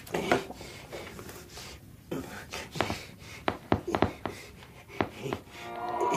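Irregular small knocks and clicks with soft breathing sounds, and music fading in near the end.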